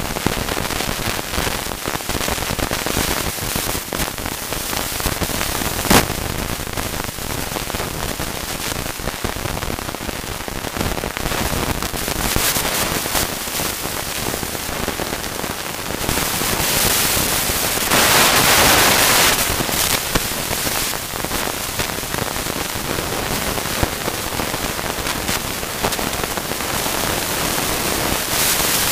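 Mountain bike rattling and crackling as it rolls fast down a leaf-covered forest trail, with wind rushing on the microphone. A single sharp knock comes about six seconds in, and the rush of wind swells for a couple of seconds past the middle.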